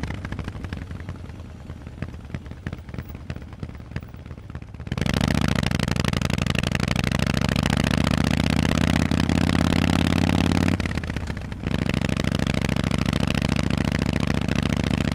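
Harley-Davidson Forty-Eight's air-cooled V-twin running through Vance & Hines exhaust pipes while ridden. It is quieter off the throttle for the first few seconds, then the throttle opens about five seconds in and the engine pulls with slowly rising revs. The sound dips for about a second near eleven seconds in, then pulls again.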